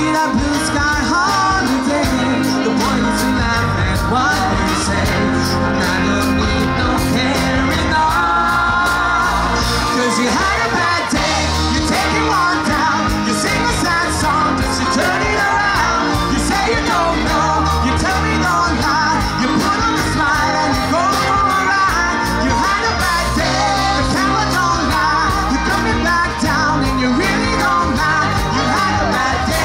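Live band playing amplified music with a lead singer and a steady beat.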